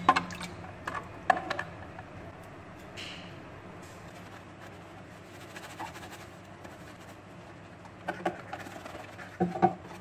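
Wet plastic TV cabinet parts being handled and scrubbed with a soapy sponge, with a few sharp plastic clacks as the pieces knock together, the loudest near the end.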